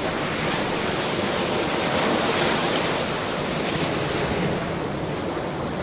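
Ocean surf: waves washing in as a steady hiss, swelling a little about two seconds in and then easing off.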